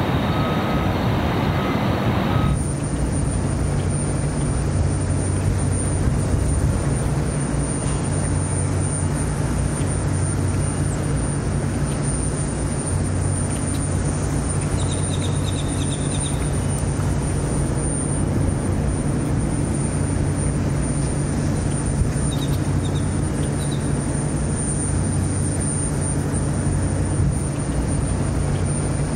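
Steady low mechanical drone of machinery running, with a faint thin high whine above it. About two and a half seconds in, a different, noisier sound cuts off abruptly as the drone takes over.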